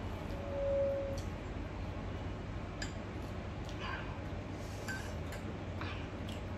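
Light clicks and clinks of kitchen utensils and dishes being handled, a few scattered strokes over a steady low hum, with a short steady tone near the start.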